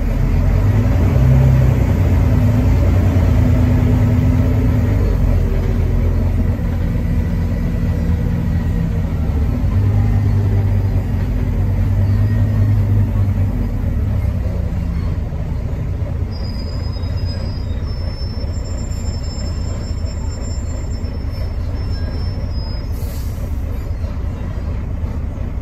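Volvo D9B 9.3-litre diesel engine of a Volvo B9TL double-decker bus, heard from the upper deck, pulling under load with its pitch shifting, then easing off after about 14 seconds. A faint high-pitched squeal comes in about 16 seconds in, and a short hiss sounds near the end.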